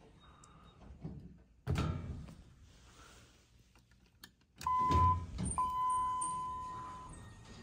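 Dover Impulse elevator doors thud shut, then thunk as they reopen to a hall call. The hall lantern chime then sounds twice at the same pitch, a short tone followed by a longer ringing one, the two-stroke signal of a car going down.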